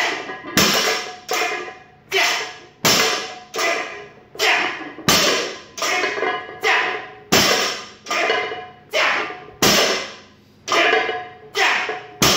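A 225 lb loaded barbell clanking through repeated rows: a sharp metallic clank with a short ring about every three-quarters of a second as the iron plates knock on the bar and come back down to the floor.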